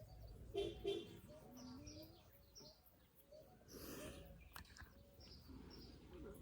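Birds chirping faintly in the background as short, repeated high chirps. Two short pitched sounds come about half a second in, and a brief breathy noise comes about four seconds in.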